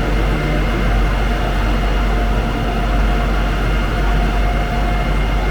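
Steady low rumble of street traffic, with a few faint steady tones above it.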